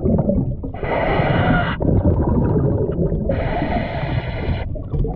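Scuba diver breathing through a regulator, heard underwater: two inhalations of about a second each, about a second in and about three seconds in, with low rumbling exhaled bubbles between them.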